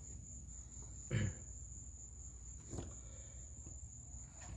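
Insects trilling steadily at one high pitch, with a dull thump about a second in and a lighter knock near three seconds.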